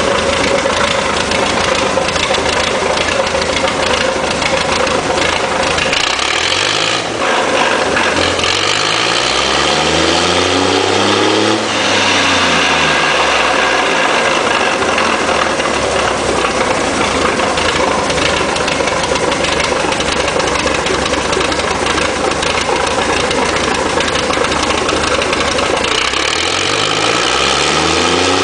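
Hino K13C turbocharged inline-six engine, converted from diesel to run on CNG, idling, then revved up once about a quarter of the way in and dropping back to idle a few seconds later; near the end it starts to rev up again.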